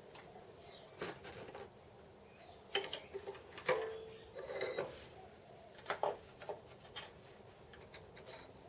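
Faint, scattered metallic clicks and clinks of small metal tools or parts being handled on a workbench, at irregular times, the loudest nearly four seconds in with a short ring.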